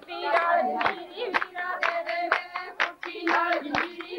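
Women singing a Punjabi boli for giddha, with hand claps keeping time at about two a second. The sound is dull, with little treble, as on an old VHS tape recording.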